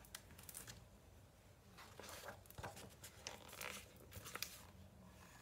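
Faint paper rustling and soft clicks as a large picture book's pages are handled and turned to the next spread, with a few short rustles in the middle.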